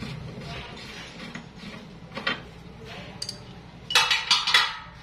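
Metal service-valve caps on an air conditioner's outdoor unit being unscrewed by hand and handled, with light scraping and clicks, then a loud cluster of metal clinks and knocks about four seconds in.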